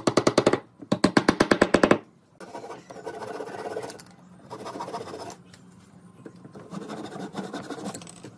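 A quick run of sharp taps, about eleven a second, for the first two seconds, then a hand saw rasping in three spells as wooden dowel pegs are cut off flush with the frame.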